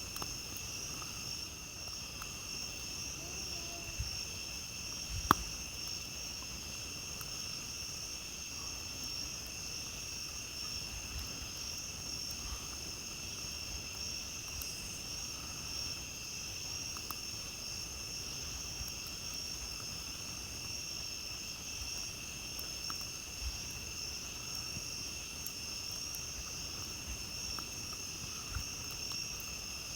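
Crickets trilling steadily in a continuous night chorus, with scattered faint crackles from a wood campfire and one sharp pop about five seconds in.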